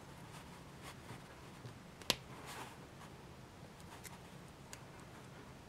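Faint handling of a small plastic charm being threaded onto a cord bracelet: soft scattered ticks and rustling, with one sharp click about two seconds in.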